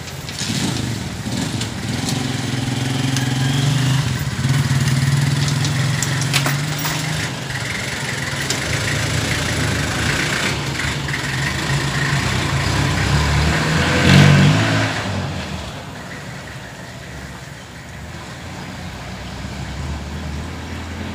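A motor vehicle engine running, growing louder to a peak about 14 seconds in and then fading away, with a few light clicks over it.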